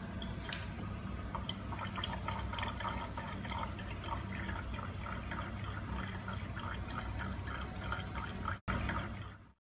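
Cat lapping water from a water cooler's dispenser spout: a quick, regular run of small wet licks and drips over a steady low hum.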